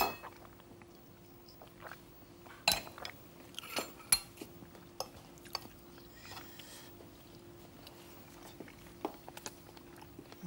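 Knives and forks clinking and scraping on china plates as two people eat, in scattered small clicks with a few sharper clinks about three and four seconds in.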